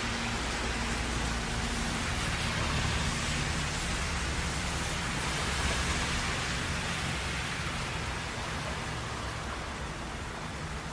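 Heavy rain and traffic on a wet highway: a steady hiss of rain and tyre spray over a low rumble of passing vehicles, easing slightly near the end.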